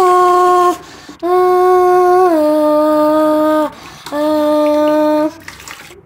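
A person humming a slow tune close to the microphone: three long held notes with short gaps between them, the second sliding down to a lower pitch partway through.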